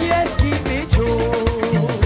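Mento gospel music from a live band: electric guitar, bass guitar and drums playing a bouncy, steady beat.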